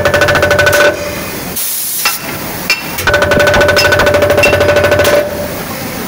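Foundry sand-ramming moulding machine jolting a sand-filled moulding box to compact the sand: two bursts of rapid hammering, the first about a second long and the second about two seconds.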